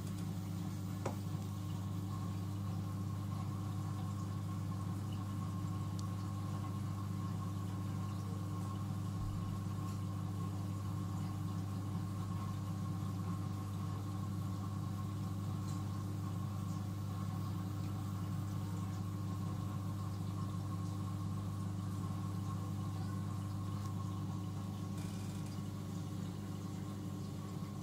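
Steady low mechanical hum of a marine aquarium's pumps and equipment running.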